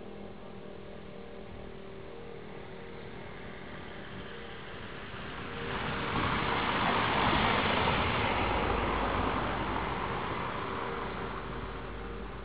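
A road vehicle passing by: a rush of noise that swells about halfway through, peaks, and fades away again over several seconds.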